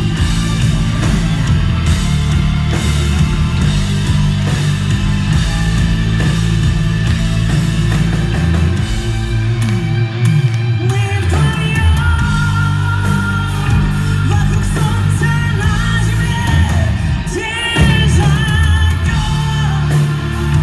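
Live rock band playing a song with singing. A high melodic line comes in about halfway through.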